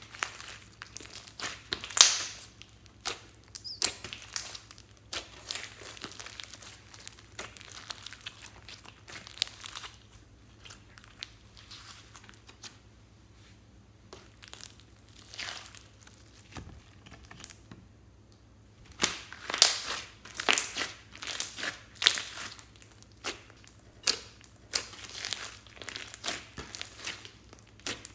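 Hands kneading, stretching and pressing glossy slime mixed with foam beads (floam), giving irregular wet crackles, pops and squelches as air pockets burst. The crackling eases off for several seconds past the middle, then picks up again and gets busier.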